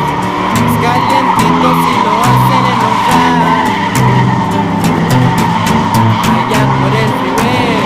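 Tires squealing in a sustained burnout, heard under loud music with an even beat and a stepping bass line.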